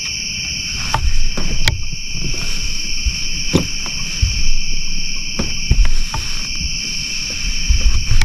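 Steady chorus of night insects trilling in two high, unbroken bands, with scattered close knocks and low thumps from handling and movement near the microphone.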